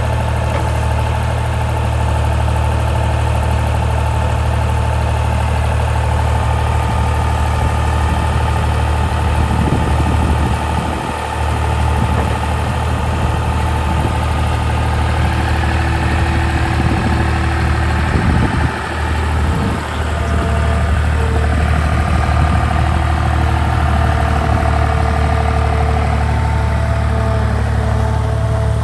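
John Deere 250 skid steer's diesel engine running steadily at idle, a loud low hum with two brief dips in level partway through.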